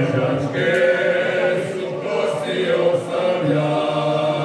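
Men's folk vocal group singing a Slavonian traditional song a cappella in several-part harmony, with long held notes that shift a few times.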